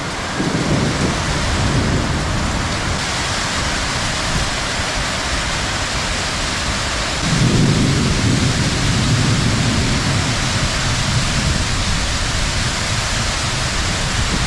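Heavy rain hissing steadily through a thunderstorm, with a low roll of thunder breaking in about halfway and rumbling on for several seconds.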